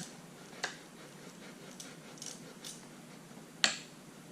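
A few sharp clicks and light taps of parts and hand tools being handled while handlebar clamp bolts are fitted finger tight, the loudest click about three and a half seconds in.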